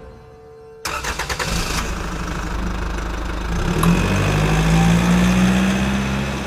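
A car engine being cranked by its starter for about a second, catching and running, then revving up with a rising pitch and fading away near the end.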